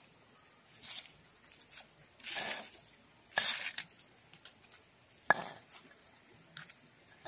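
Stone pestle and plastic spatula tossing and scraping vegetables in peanut sauce around a stone mortar: a few short wet scrapes and squishes, with one sharp knock about five seconds in.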